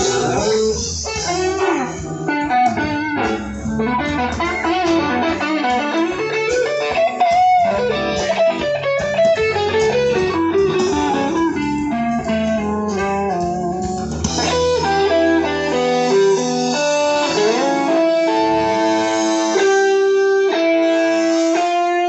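Rock band playing live through a PA during a sound check: an electric guitar line over bass and drums. After about sixteen seconds the low end drops away, leaving long held guitar notes.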